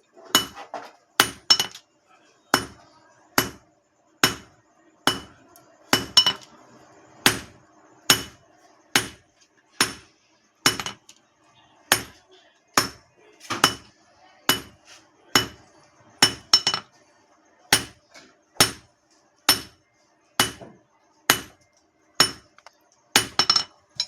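Blacksmith's hand hammer striking steel on an anvil in steady forging blows, a little over one a second and now and then a quick double strike. Each blow has a bright metallic ring.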